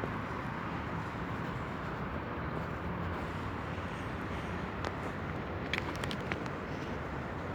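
Steady outdoor background noise, with a few light clicks about five to six seconds in.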